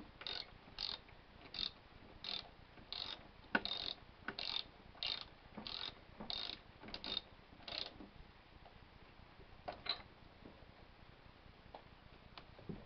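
Socket ratchet wrench clicking in short, even back-strokes, about one every half second, as a spark plug is turned. The strokes stop about eight seconds in, with two more clicks near ten seconds.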